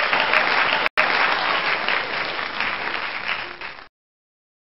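Canned applause sound effect: a crowd clapping, with a split-second break about a second in, cutting off suddenly about four seconds in.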